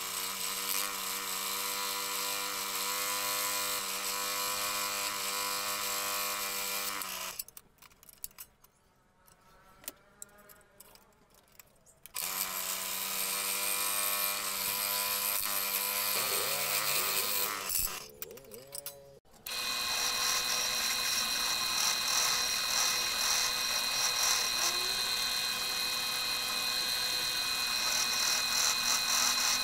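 Scroll saw running with a steady hum as its blade cuts through 15 mm teak from a drilled hole. It stops about seven seconds in, starts again some five seconds later, and winds down near two-thirds of the way through. After that a sanding drum spins steadily with a high whine as the wooden wheel's inner edge is sanded against it.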